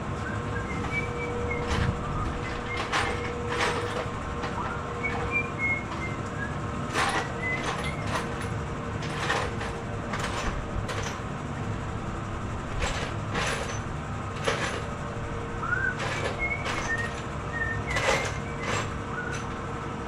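Irregular clinks and clatters of small hardware being rummaged through in shop parts drawers and bins while searching for a bolt, over a steady background hum.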